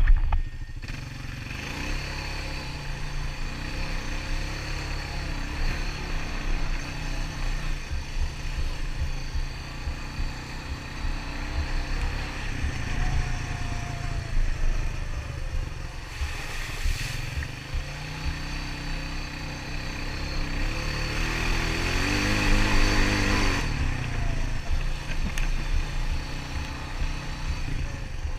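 Honda ATV single-cylinder four-stroke engine running under way on a trail, its pitch rising and falling with the throttle, over a steady low rumble. It gets louder with a rising rev about three-quarters of the way through.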